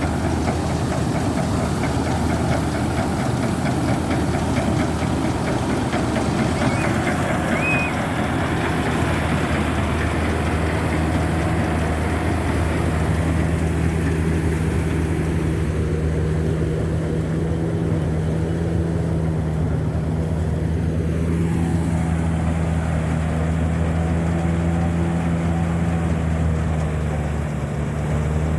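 Kubota MU5502 tractor's four-cylinder diesel engine running steadily under the Balkar 525 rice-harvester box, a continuous heavy hum. The high-pitched noise on top fades about halfway through, leaving a smoother drone.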